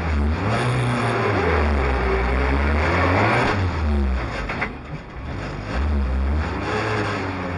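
Rally car engine heard from inside the cockpit, revving up and easing off in turn: it climbs and holds high for a couple of seconds, drops off about four seconds in, then climbs again near the end.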